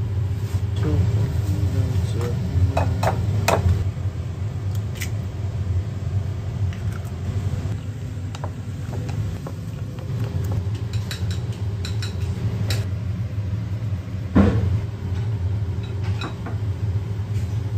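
Meat being stir-fried in a black wok on a gas burner: a long metal spatula clinks and knocks against the pan a few times over a steady low kitchen hum, with the loudest knock about fourteen seconds in.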